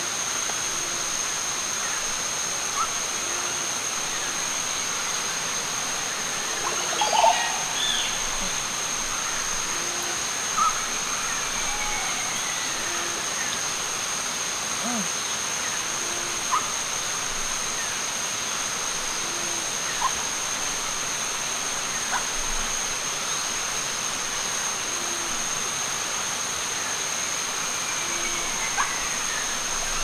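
Rainforest ambience: a steady rush of running water under a constant high insect drone. A short low call repeats about every two seconds, with scattered bird chirps and a few brief clicks, the most distinct about seven and ten seconds in.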